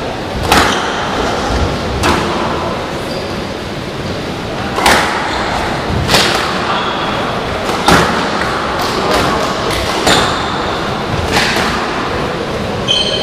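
Squash rally: sharp smacks of racket on ball and ball off the walls, one every one to two seconds, with short squeaks of shoes on the wooden court floor between the shots.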